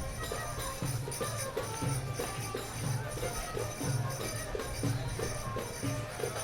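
Music with a steady beat: low bass notes about twice a second under jingling percussion.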